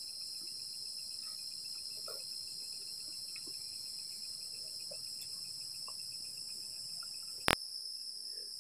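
Night-time chorus of crickets: a steady high-pitched trill with a fainter rapid pulsing trill beneath it. A single sharp click sounds about seven and a half seconds in.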